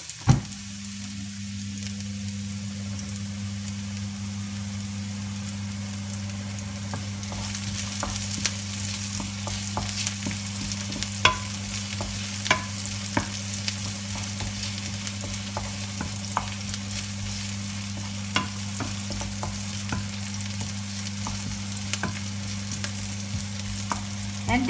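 Crushed garlic sizzling as it browns in hot oil in a nonstick pan, stirred with a wooden spoon that gives scattered taps and scrapes. The sizzle grows stronger about seven seconds in. A steady low hum runs underneath, starting with a click just after the beginning.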